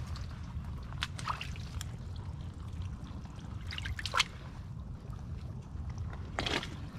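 Wet mud and water squelching and trickling as a hand feels down into a waterlogged mud crab hole, with a few short sharp splashes, over a steady low rumble.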